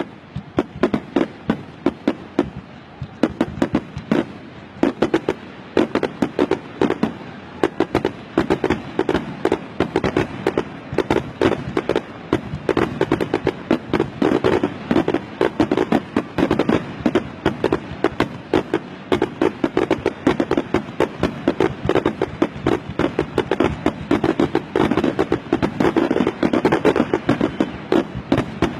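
Fireworks finale: a dense, unbroken barrage of sharp bangs and crackling, many reports a second.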